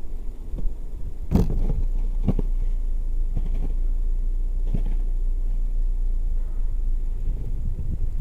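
Snow shovel scraping and thudding into snow a few times, over a steady low rumble.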